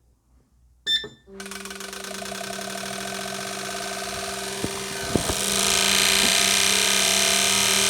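Fuel injector test bench starting its next test: after a click, the bench's pump and pulsing injectors set up a steady electric buzz that slowly grows louder, joined about five seconds in by a stronger hiss.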